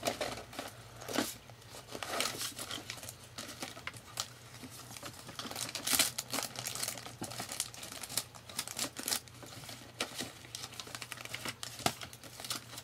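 Paper rustling and crinkling irregularly by hand, with sharper crackles now and then, as scraps of paper are sorted through.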